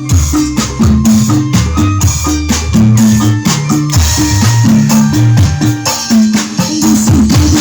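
Loud music with a heavy, moving bass line and busy percussion, played back through a sound system being tested.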